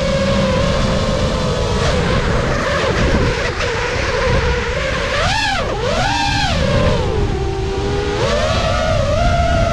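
FPV racing quadcopter's brushless motors and three-blade propellers whining, heard from the onboard camera, the pitch rising and falling as the throttle changes. There are two quick throttle blips about five to six and a half seconds in, over a steady wind rumble on the microphone.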